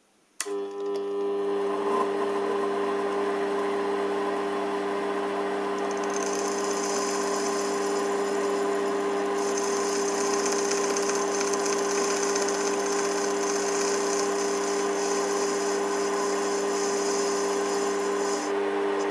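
Small metal lathe switched on about half a second in, its motor and gearing running with a steady hum. From about six seconds in a higher hiss joins as the turning tool cuts into the brass workpiece.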